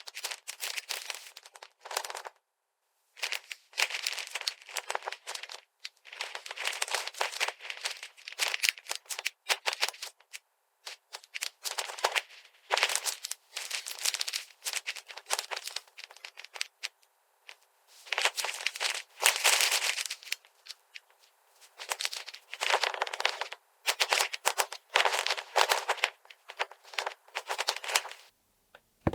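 Plastic packaging and small plastic toy pieces being handled, crinkling and crackling in bursts of a second or two with short pauses between.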